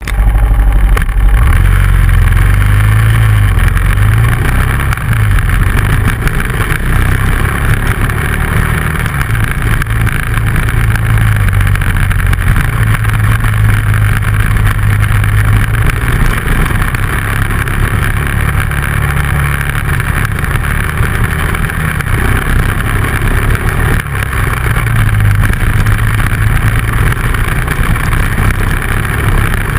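Dual-sport motorcycle engine running under way, its note rising and falling with the throttle, over a steady rush of noise from the ride.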